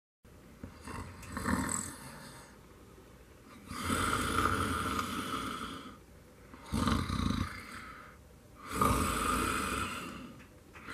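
A man snoring in his sleep: four long, rasping snoring breaths, each a second or two long, with short pauses between them.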